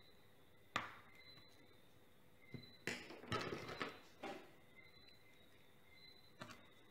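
Light clicks and clatter of small repair tools on a phone and a work table. There is one sharp tick about a second in, then a run of small clattering knocks in the middle as the precision screwdriver is put down and another tool picked up, and one more click near the end.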